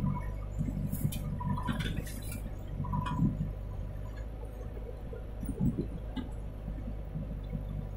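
Diesel engines of a JCB 3DX backhoe loader and a Mahindra tractor running steadily, with a cluster of clanks and a rush of falling soil about one to three seconds in as the backhoe works its load into the tractor trolley, and one more knock about six seconds in.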